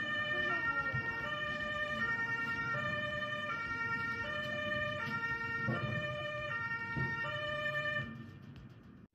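German ambulance two-tone siren (Martinshorn) sounding over low street rumble, switching back and forth between two pitches, each held well under a second, before fading out near the end.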